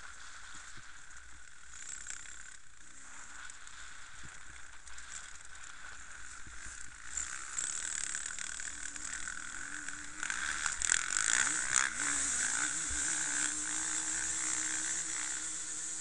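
Dirt bike engines running on an enduro course, their pitch rising and falling as the riders work the throttle. About ten seconds in it gets louder, with a burst of rattling and clattering.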